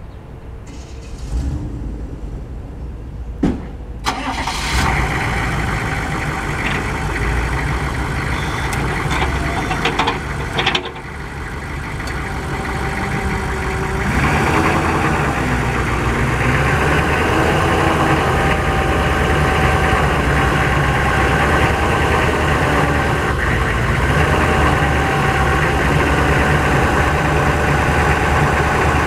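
A dump truck's engine cranks and starts about four seconds in, then idles. From about halfway the bed's hydraulic pump joins with a steady whine over the engine as the dump body is raised.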